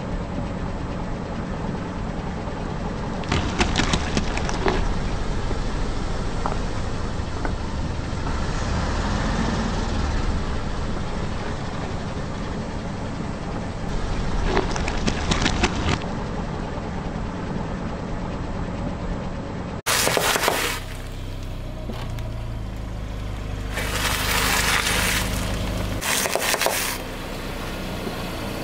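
A car tyre slowly rolling over raw potatoes, crushing them with cracking crunches twice, over the steady sound of the car's idling engine. Near the end, the tyre rolls over snack packets, and they crunch three more times.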